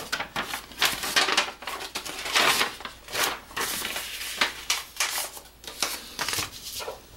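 Sheets of paper rustling and crinkling as they are picked up and handled, in a quick irregular string of rustles.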